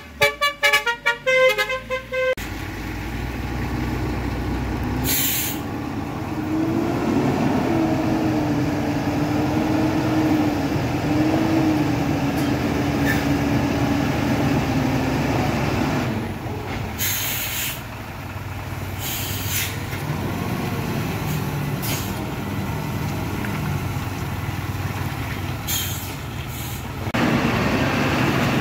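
A vehicle horn toots in quick pulses for the first two seconds. Then the diesel engine of a Mitsubishi Fuso dump truck runs steadily as the truck climbs past, with about five short bursts of air-brake hiss.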